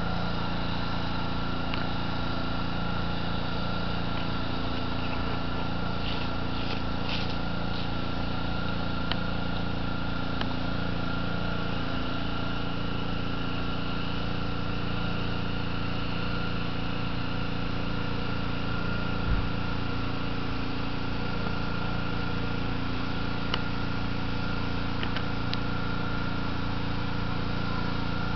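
A steady motor drone at a constant pitch, with a single low thump about 19 seconds in.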